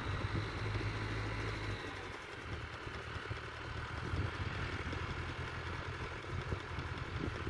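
Tractor engine running steadily at a distance, a low hum that eases slightly about two seconds in, as the tractor drives a Vicon fertiliser spreader.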